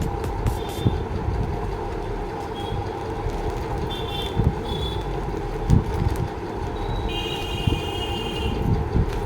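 Street traffic noise over a steady hum, with several short vehicle-horn toots and a longer horn blast near the end.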